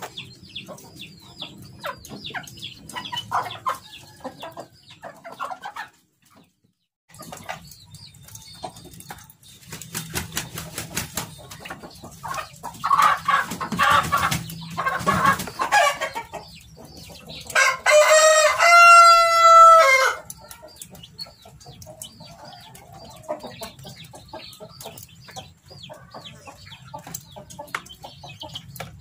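Chickens clucking on and off, with a flurry of busier calls just before the middle. Then a rooster crows once, loud and long, for about two and a half seconds.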